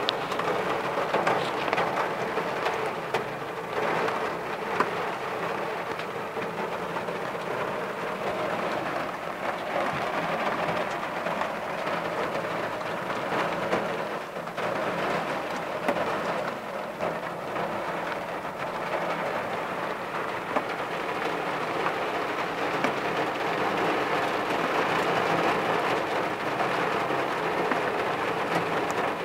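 Downpour drumming on a car's roof and windows, heard from inside the cabin: a steady, dense patter of drops.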